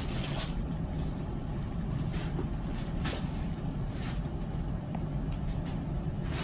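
Inflated plastic air-pillow packaging crinkling and rustling in short, scattered bursts as kittens move through it, over a steady low background hum.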